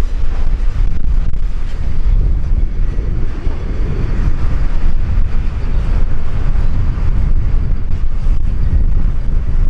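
Wind buffeting the microphone in an uneven low rumble, over the noise of a diesel-hauled container freight train rolling slowly past.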